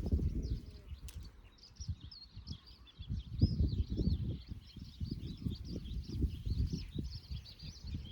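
Small birds singing continuously in quick warbling phrases, over irregular low rumbling and soft knocks that are louder than the song.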